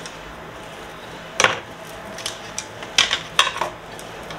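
Hard black trivets knocking against each other and against a bamboo dish rack as they are taken up and set into its slots: a few sharp clacks, one about a second and a half in and a small cluster around three seconds.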